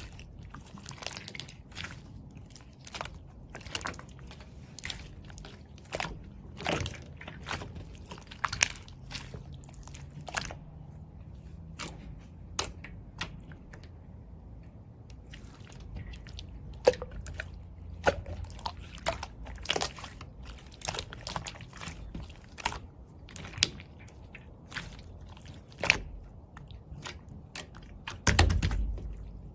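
Slime being squeezed, pressed and stretched by hand, giving irregular sharp clicks and pops, with a louder cluster of them near the end.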